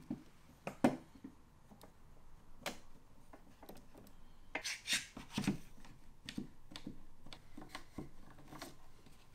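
Scattered light knocks and clicks with short rubbing of wood on wood, as a small Dutchman patch block is fitted by hand into a chipped window sash.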